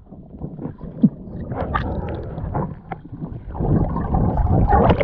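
Muffled underwater rumbling and gurgling picked up by an action camera in its waterproof housing as a swimmer moves through the water, with scattered small clicks; it grows louder in the last second or so.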